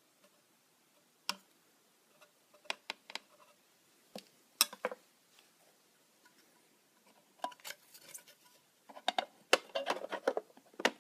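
Handling noise on a clear plastic tarantula enclosure: irregular clicks and taps of a tool and fingers on the plastic, coming thicker near the end.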